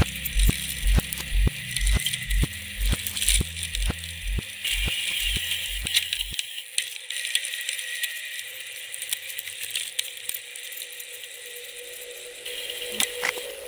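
A mountain bike rolling on wet tarmac, heard from a camera mounted on the bike: a steady hiss of tyres and wind with rattling from the bike. For about the first six seconds there are also even knocks about twice a second over a low bass, which stop suddenly.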